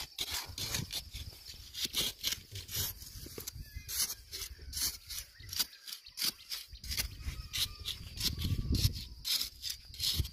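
Wooden digging stick scraping and jabbing into damp sand while hands scoop sand out of the hole, as a run of short, irregular scrapes. A low rumble swells near the end.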